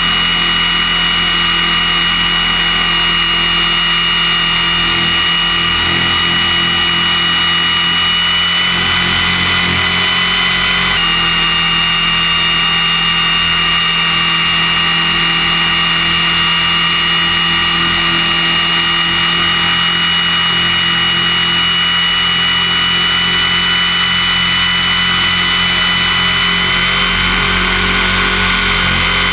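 An Align T-Rex RC helicopter heard from on board in flight: a loud, steady high whine from the motor and gears over the buzz of the rotors. The pitch shifts slightly a couple of times.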